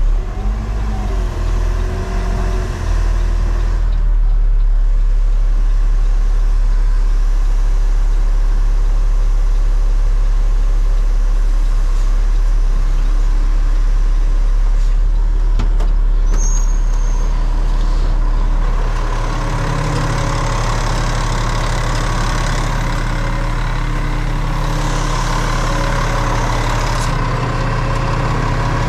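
Roll-off garbage truck's diesel engine running steadily. About two-thirds of the way through, its sound grows louder and fuller, as under added load or higher revs.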